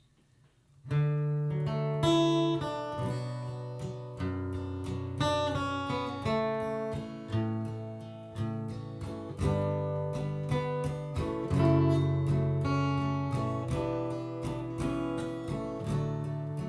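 Acoustic guitar playing the instrumental introduction of a somber song, with chords picked and strummed. It starts about a second in, after a brief silence.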